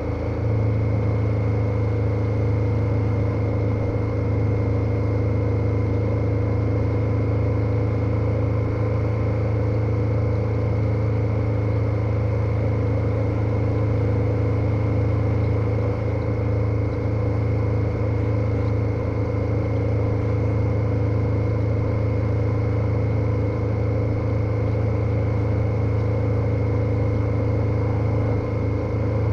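KTM 1290 Super Adventure motorcycle's V-twin engine running steadily at cruising speed, its pitch holding constant.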